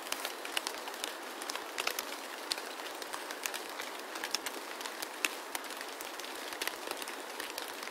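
A steady crackling hiss with many scattered sharp clicks throughout, with no low end.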